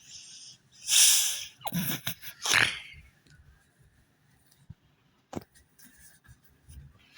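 Three loud, breathy bursts of a person's voice close to the microphone, the last sliding down in pitch, followed by a single sharp click a little after five seconds in.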